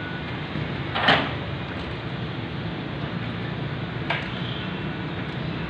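Hand-pushed thermoplastic road-marking applicator at work: a steady low hum and hiss, broken by two sharp metal clanks, about a second in and again about four seconds in.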